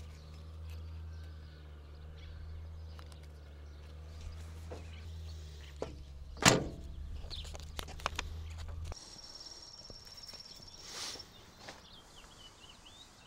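A steady low hum that cuts off about nine seconds in, with a few faint clicks. A thin high tone follows for about two seconds.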